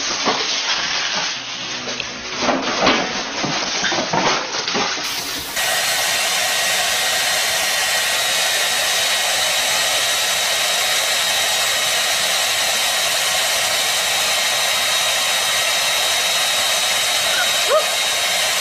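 Hand-held hair dryer blowing steadily, a loud even hiss with a thin high whine, starting suddenly about five and a half seconds in. Before it come scattered knocks and short noises.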